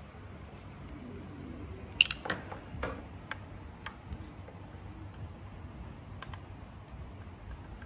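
Steel screwdriver clicking and ticking against a screw and the metal cover of an industrial overlock sewing machine as the screw is driven in: one sharp click about two seconds in, then several lighter ticks, over a low steady rumble.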